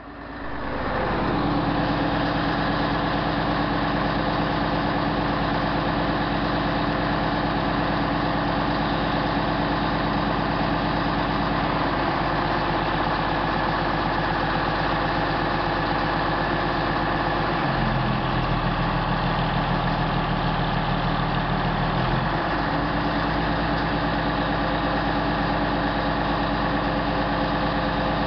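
Truck engine running steadily to drive the hydraulics of a Fassi F460.26 truck-mounted knuckle-boom crane. Midway the engine note shifts for several seconds as the crane's hydraulics work the boom, then settles again.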